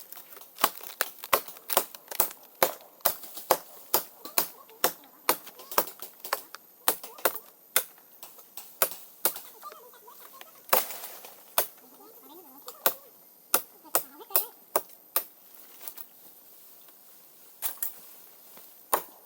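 A run of sharp, even strikes, about two a second, which stops about fifteen seconds in; two more strikes come near the end.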